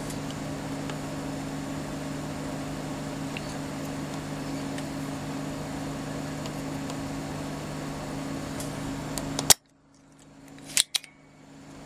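A steady low hum with hiss, which cuts out suddenly about nine and a half seconds in. Two short sharp clicks follow about a second later.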